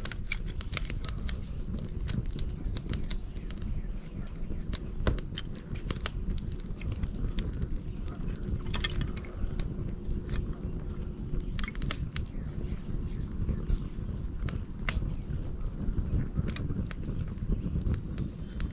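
Wood fire crackling, with frequent sharp pops scattered irregularly over a steady low rumble.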